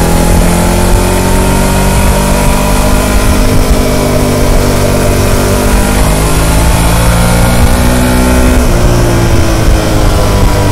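Harley-Davidson Pan America's liquid-cooled Revolution Max 1250 V-twin through the stock muffler, running under way and pulling up through the revs with the pitch slowly rising. About eight and a half seconds in the pitch drops suddenly, then climbs again.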